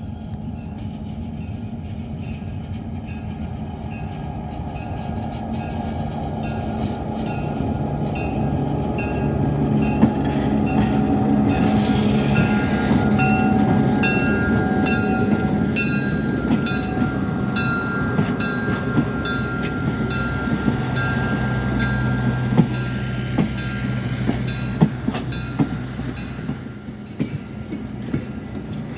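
Diesel locomotive, an EMD GP38-2, running as it moves up, growing louder to a peak about halfway through and then easing off, with its bell ringing in steady repeated strokes throughout.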